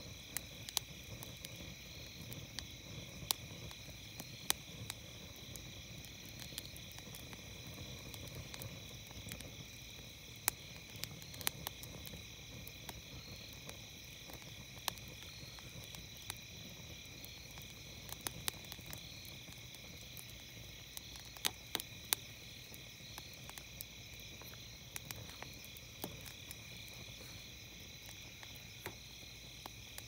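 Wood campfire crackling, with sharp irregular pops and snaps, over a steady high-pitched chorus of night insects trilling.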